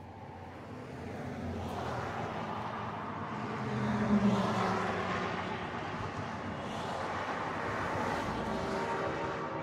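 Road traffic passing on the highway: tyre and engine noise rises and falls as a pickup, cars and an SUV go by, loudest about four seconds in and again near eight seconds. Near the end, steady tones of a multi-chime horn start to come in.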